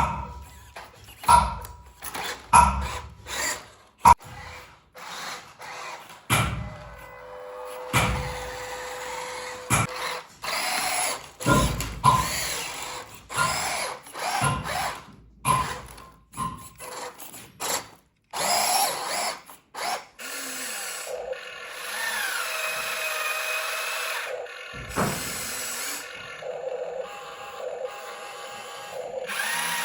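Small electric motors and plastic gearboxes of radio-controlled model vehicles, whining in short spurts among many clicks and knocks. Near the end the whine becomes steadier, switching on and off and sliding in pitch.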